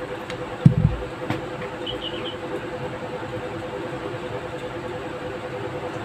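Scissors snipping a cotton thread, with a low thump just under a second in; then a steady background hum with a few faint high chirps about two seconds in.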